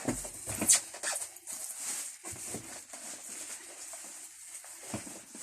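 Irregular rustling, scraping and knocking of an air fryer's packaging as the heavy box is struggled open, with one sharp, louder snap less than a second in.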